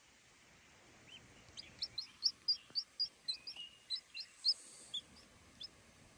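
Baby chick peeping: a quick run of short, high peeps, about three a second, starting about a second in and tailing off near the end.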